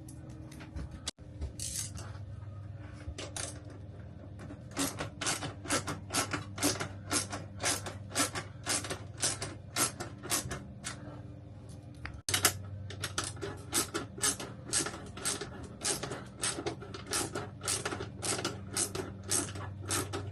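Ratchet wrench being worked in quick strokes, sharp clicks about two or three a second, over a steady low hum, loosening the mounting bolts of an RV roof air conditioner.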